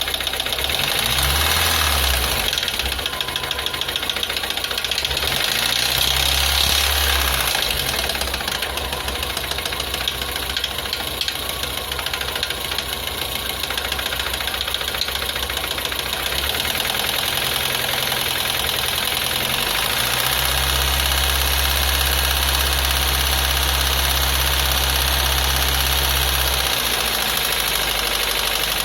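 VAZ-21083 (Lada Samara) four-cylinder petrol engine running with a rapid knock from inside the engine, the fault being shown. A deep hum swells under it at times, longest from about twenty to twenty-seven seconds in.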